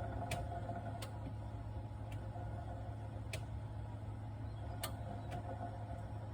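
Samsung RT32 refrigerator running with a steady low hum and a faint higher whine, broken by sharp clicks at irregular intervals, about six of them. This is the fridge's abnormal noise.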